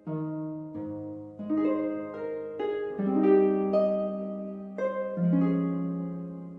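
Slow instrumental music of plucked notes, each struck sharply and ringing as it fades, several overlapping into chords.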